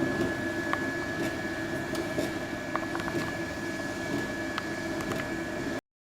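SF 150 horizontal continuous band sealer running, its motor and fan giving a steady hum with a constant high whine and a few light clicks; the sound cuts off suddenly near the end.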